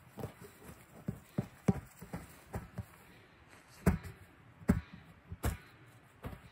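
A large inflatable exercise ball thumping as it is bounced on grass: three loud, hollow thumps under a second apart, starting a little before four seconds in, after a run of softer knocks.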